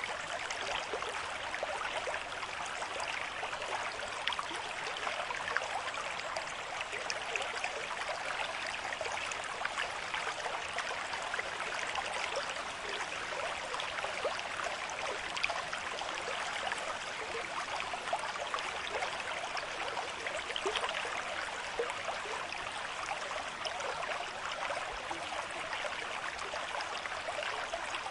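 River stream running at a moderate flow: a steady rush of water with fine splashing, even throughout.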